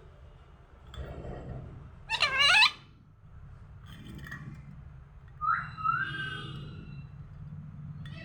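Pet parrot calling: a loud, shrill call with a wavering pitch about two seconds in, then a shorter rising whistle-like call about five and a half seconds in.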